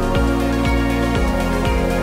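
Background music: sustained synth chords over a steady beat of about two beats a second.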